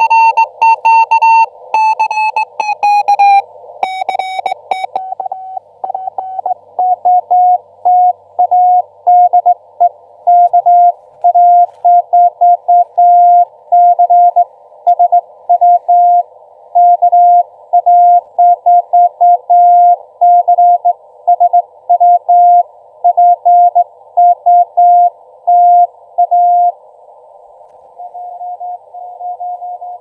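Morse code (CW) from an Elecraft KX2 transceiver: a single steady tone keyed on and off in dots and dashes over a hiss of band noise narrowed by the CW filter. In the first few seconds a tone slides down in pitch, as when the receiver is tuned across a signal. Near the end a fainter station keys at the same pitch.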